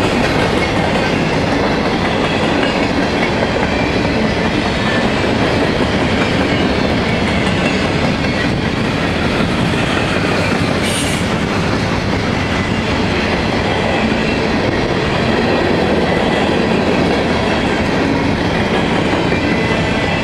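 Freight train cars, covered hoppers and boxcars, rolling past: steel wheels on rail making a loud steady rumble and clatter, with a brief high screech about halfway through.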